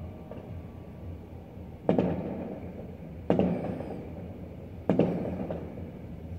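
Fireworks shells bursting: three sharp booms about a second and a half apart, each trailing off in a long echo.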